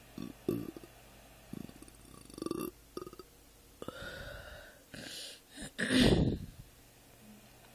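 A person burping: a string of about seven short burps and breaths, the loudest and deepest about six seconds in.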